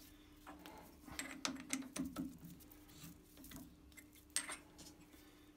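Light metallic clicks and clinks from an independent four-jaw lathe chuck as its jaws are adjusted and the chuck turned by hand, over a faint steady hum.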